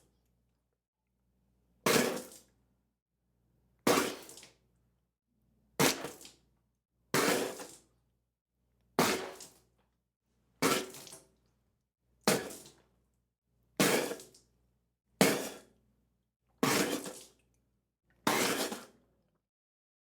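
A person spitting out a large mouthful of liquid, over and over: about eleven separate wet spits, each sudden and about a second long, fading quickly, with silence between them.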